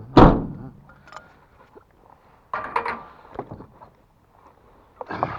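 A heavy thump a moment in, then scattered knocks and clattering twice more, from something being handled.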